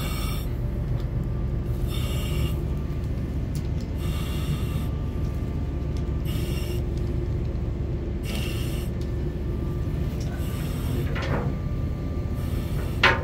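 Breathing through a self-contained breathing apparatus mask: a hiss from the air regulator about every two seconds, over a steady low rumble. A sharp clink near the end.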